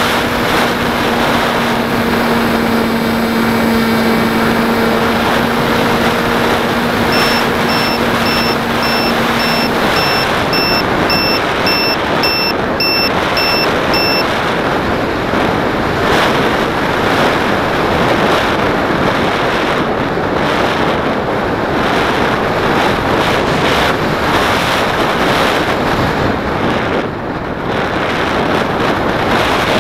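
Airflow rushing over a radio-controlled model plane in flight, with a steady motor hum that stops about ten seconds in, leaving only the wind noise as it glides down. A regular high beeping, about two beeps a second, sounds for several seconds from about seven seconds in.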